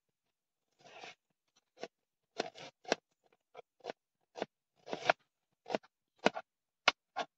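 Kitchen knife slicing onion on a plastic cutting board: a scrape about a second in, then uneven sharp knocks of the blade through the onion onto the board, about two a second.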